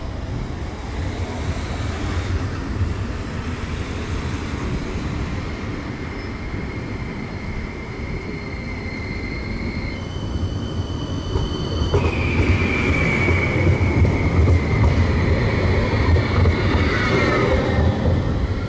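A CAF Urbos 3 low-floor electric tram approaches and passes close by. Its wheels rumble on the track under a high electric whine, which jumps to a brief cluster of higher steady tones about ten seconds in. The whine then falls slowly in pitch as the tram goes past and the sound is at its loudest.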